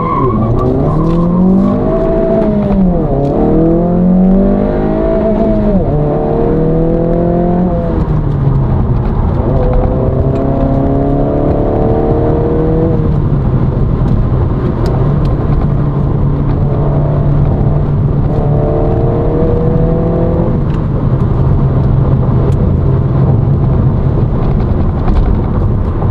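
Honda Civic's 1.5-litre turbocharged four-cylinder accelerating hard, with induction noise from the high-volume intake. The revs climb and drop through several quick gear changes in the first eight seconds, then rise in two more pulls about ten and eighteen seconds in, with a steady drone between.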